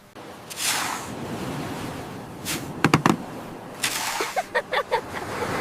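Sound-effect surf washing on a beach, with a couple of whooshes and a quick cluster of sharp clicks about three seconds in.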